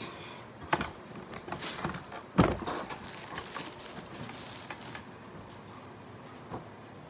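Handling noise from someone moving about: a few knocks and rustling, with one loud thump about two and a half seconds in and a smaller knock near the end.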